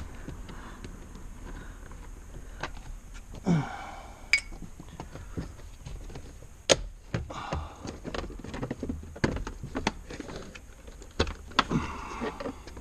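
Scattered clicks, knocks and rattles of hands and tools working on a car's dashboard while the gauge cluster is being removed, with one sharp knock about two-thirds of the way through.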